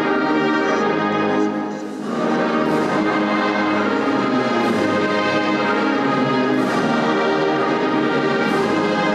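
Choir singing the university alma mater in full voice, slow and sustained, over brass accompaniment, with a short dip about two seconds in.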